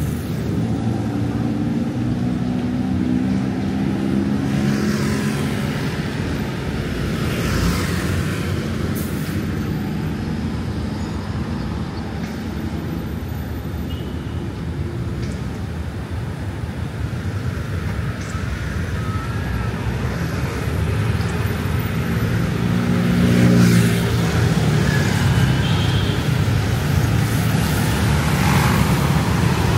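Steady road traffic of motor scooters and cars driving past. Engine notes swell as nearer vehicles pass near the start and again about three quarters of the way through, the loudest just before the end of that stretch.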